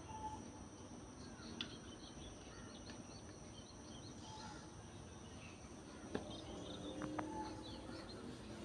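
Faint outdoor background with small birds chirping on and off, in short high calls.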